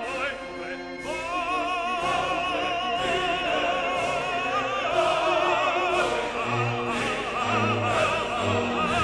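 Background classical music: an operatic voice singing with wide vibrato over sustained accompaniment, with a faint beat about once a second.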